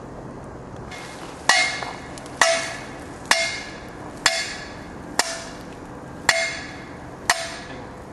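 A sledgehammer striking the top of a metal post to drive it into the ground: seven ringing metal clangs about one a second.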